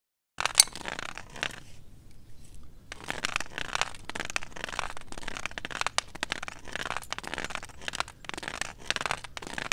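A white cane sweeping across a stone pathway: a gritty scraping over the stones, broken by sharp clicks as the tip catches their edges, with a short pause about two seconds in.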